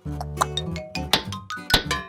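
Background music with a steady beat: bass notes and a light melody over regular percussion hits.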